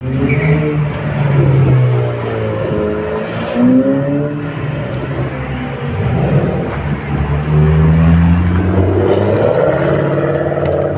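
Sports car engines revving and passing one after another, a Ferrari first and then a Ford Mustang, their pitch rising and falling as they accelerate.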